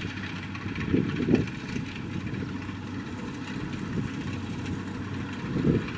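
Kubota DC70 combine harvester's diesel engine and threshing gear running steadily as it cuts rice, with gusts of wind buffeting the microphone about a second in.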